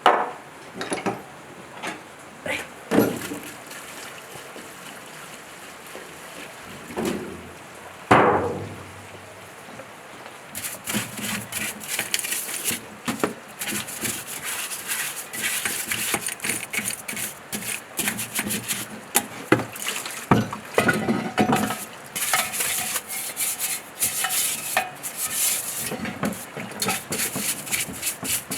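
Metal engine parts from a dismantled generator knocked and clinked while being handled, then, from about ten seconds in, scraped in quick repeated strokes as the parts are cleaned.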